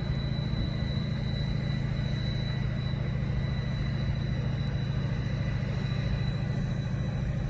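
Boat engine running at a steady pace, a low even rumble with a faint high whine over it.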